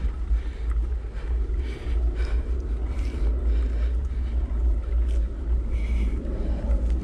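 Wind buffeting the microphone of a camera on a moving mountain bike, a steady low rumble over the noise of tyres rolling on a dry dirt trail, with a few brief rattles.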